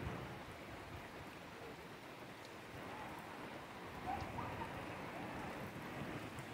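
Heavy rain falling steadily on the roof of a house. A faint short call rises above it about four seconds in.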